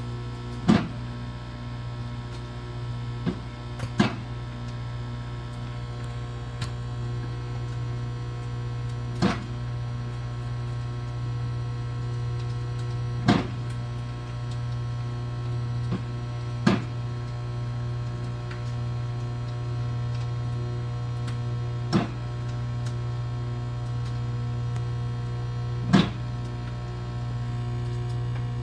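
Hamilton Beach microwave oven running with a steady hum while bacon cooks inside, with sharp pops of spattering bacon fat every few seconds.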